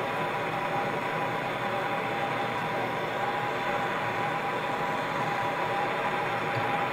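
Gas torch burning steadily into a Kwik Kiln melting furnace, a continuous even hiss.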